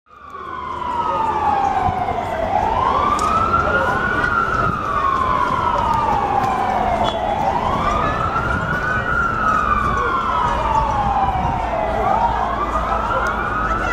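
Emergency vehicle siren in a slow wail, each cycle rising quickly then falling over about three seconds, repeating roughly every five seconds, with a low street rumble beneath.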